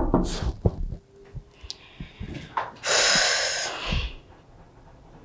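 A loud, breathy rush of air about three seconds in, lasting almost a second, like a heavy sigh or exhale, with a few faint clicks before it.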